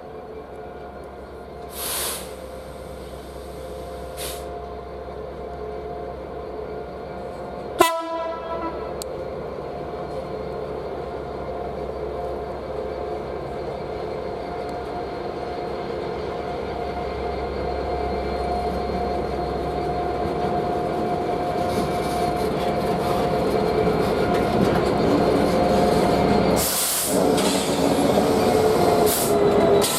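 Diesel train approaching, its steady engine drone growing louder throughout. There is a brief sharp sound about eight seconds in and short hissing bursts now and then.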